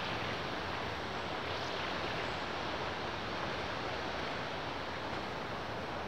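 Steady rushing of wind through the forest trees, even and unbroken, sounding much like distant surf.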